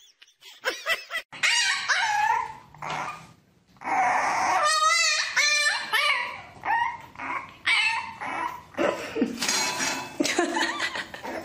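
Puppies whining and yipping: a run of short, high, pitch-bending cries, with a wavering, trembling call about five seconds in.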